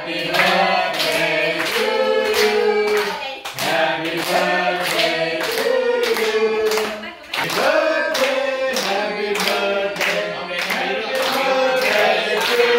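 A small group of people singing a song together, clapping along in a steady beat of about two claps a second.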